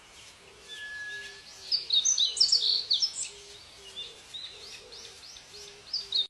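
Birds chirping and calling, with a burst of quick, loud high chirps from about two to three and a half seconds in. A soft, short low note repeats underneath.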